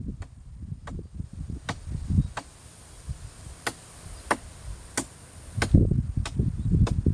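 A steady run of sharp chopping knocks, about one and a half a second, as of a blade striking wood while trimming a tree, over low rumbling handling noise.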